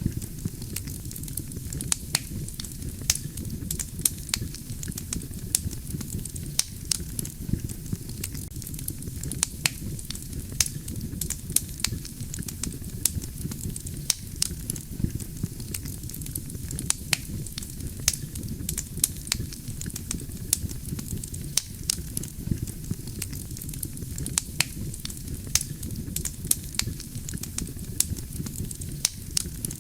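Wood fire burning steadily with a low rumble, and many sharp, irregular crackles and pops from the burning logs.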